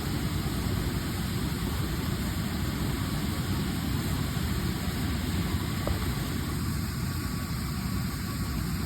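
Air compressor running steadily, a low even drone, as it inflates a newly mounted tire toward seating the bead.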